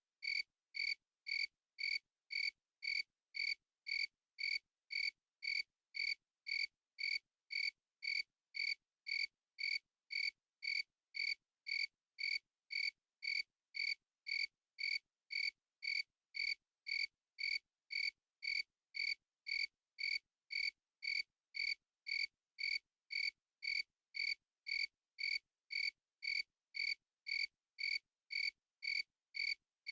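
Cricket chirping steadily, one short high chirp repeated at an even pace a little under two times a second, with silence between chirps.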